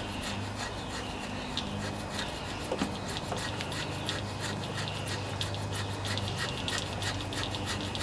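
Razor-blade gasket scraper scraping old gasket material off the fuel-pump mounting surface of a Kohler Command 14 engine's crankcase, cleaning it down to bare metal. It makes a rapid, irregular series of short scrapes.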